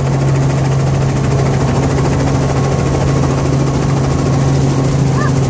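Light helicopter's engine and rotor running steadily on the ground, heard from inside the cabin as a loud, even hum.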